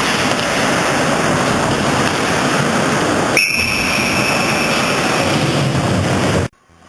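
Loud, steady rink noise from a camcorder microphone, with a referee's whistle blown about three and a half seconds in, one clear held note that fades out, signalling a stoppage of play. The sound cuts off abruptly near the end.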